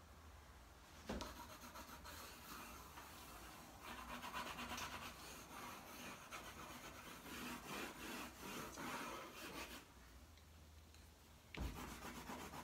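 A dry drawing tool scribbling and rubbing across paper in loose, random mark-making strokes, faint and scratchy, with a brief pause about ten seconds in before the strokes resume.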